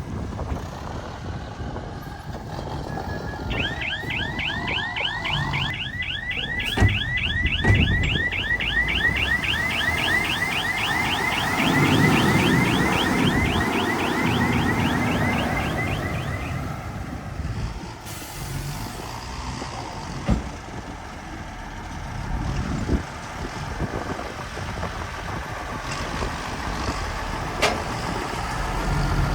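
Heavy machinery engine running, with a fast warbling electronic alarm that repeats several times a second from a few seconds in until about halfway through. A few sharp knocks come later.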